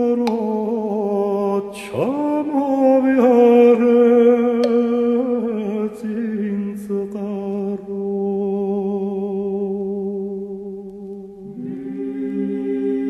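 Background music: a tenor voice sings a Georgian folk melody in long held notes with vibrato, with a sharp swooping slide about two seconds in, in a dub remix.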